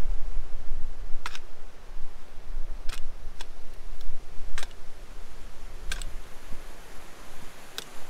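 Loose scree rocks clinking sharply under someone's footsteps and walking pole on a rock slope, about seven irregular clicks, over a low rumble of wind on the microphone.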